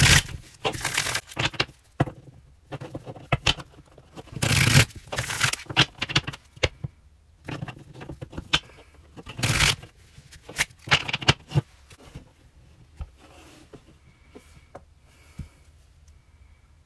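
Tarot cards being riffle-shuffled by hand: a series of quick riffles with quieter card rustling between them. Near the end the deck is squared and the sound thins to a few light clicks.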